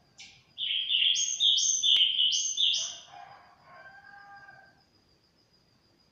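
Caged sulingan songbird singing one loud phrase of quick, clear repeated whistled notes lasting about three seconds, followed by a fainter, lower drawn-out call.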